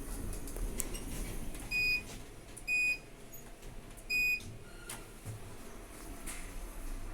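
A lift's electronic beeper sounding three short, high beeps at uneven spacing, about a second apart, over a steady low hum.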